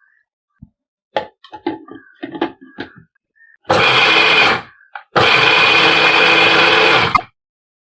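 A run of light clicks and knocks as palm sugar candy goes into a kitchen mixer-grinder jar, then the mixer grinder runs in two short bursts, about one second and then about two seconds, grinding the candy with dried ginger and pepper to powder.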